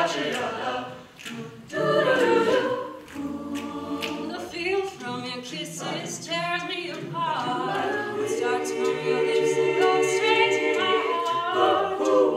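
Mixed-voice a cappella group singing in harmony, holding chords under a female soloist who sings the lead at the centre microphone.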